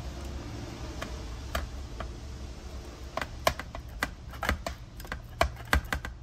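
Clicks and light metallic knocks of a hand tool working at a stuck piston in an Endless monoblock racing brake caliper. Only a few scattered clicks at first, then a quicker, uneven run of several a second from about halfway in.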